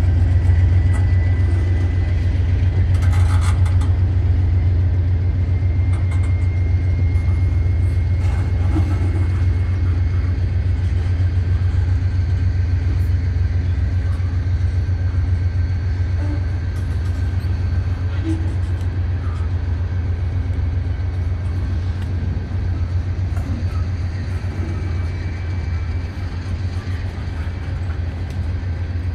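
Freight train of anhydrous ammonia tank cars rolling slowly past: a steady low rumble from the wheels on the rails, with faint high-pitched squeals and light clanks now and then.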